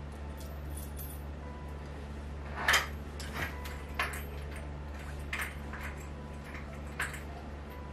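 Small metal bed-frame hardware clinking against a metal corner bracket as it is fitted by hand: a handful of sharp clicks, the loudest about two and a half seconds in, over a steady low hum.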